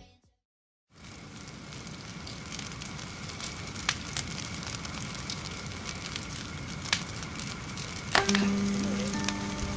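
Wood campfire burning: a steady hiss with scattered sharp crackles and pops, fading in after about a second of silence. Near the end a low held note comes in under it.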